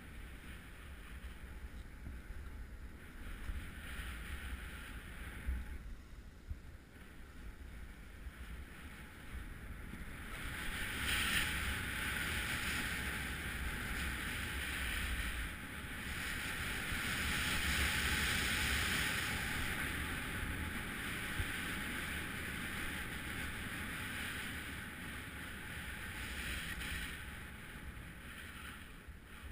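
Skis hissing and scraping over packed snow during a downhill run, getting louder about a third of the way in and easing off near the end, with wind rumbling on the microphone.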